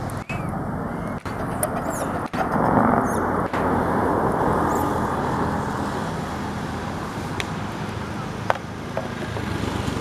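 Steady low outdoor rumble, like wind and road noise on the microphone, broken by a few brief dropouts in the first few seconds, with a sharp click about eight and a half seconds in.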